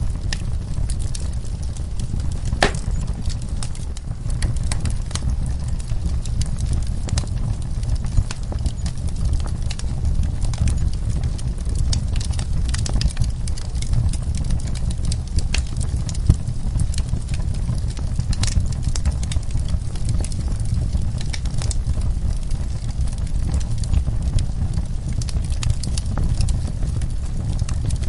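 Logs burning in a fireplace, crackling and popping in quick irregular snaps over a steady low rumble, with one louder pop about three seconds in.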